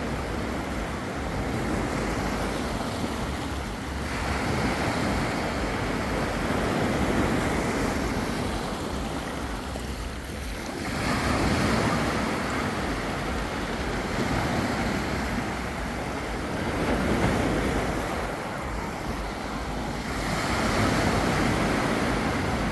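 Black Sea surf washing onto the beach, the waves swelling and falling back every few seconds, with wind rumbling on the microphone.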